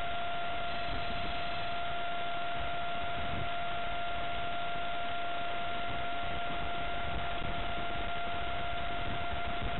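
Electric ducted fan of a radio-controlled Stryker plane, run on a 4-cell battery, giving a steady high whine at constant pitch while it flies a pass, over an even hiss.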